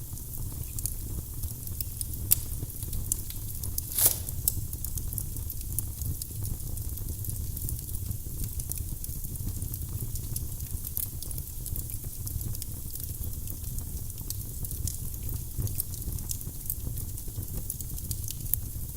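Wood fire burning in a fireplace: a steady low rumble of flame with frequent small crackles, and a sharp pop from the wood about four seconds in.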